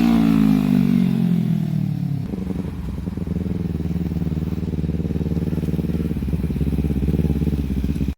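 An engine revved and then falling in pitch as the revs drop over the first two seconds, then settling into a steady, rapidly pulsing idle that cuts off abruptly at the end.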